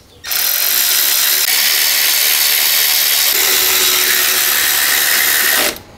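A power tool running steadily for about five seconds, a loud hiss-heavy noise that starts and stops abruptly.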